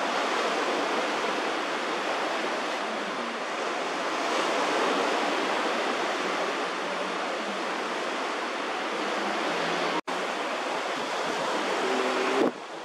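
Steady rushing noise of wind and water, unbroken except for a split-second dropout about ten seconds in.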